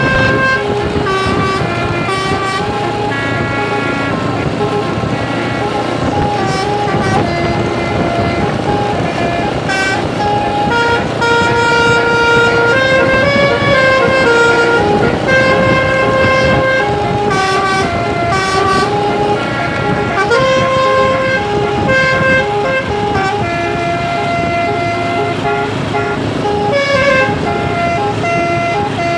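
Basuri telolet bus horn, a multi-note musical horn, playing a continuous tune, its notes stepping up and down one after another, over a low rumble.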